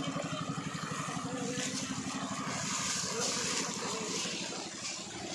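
Small boat engine running steadily with a fast, even putter that holds one speed, with faint voices behind it.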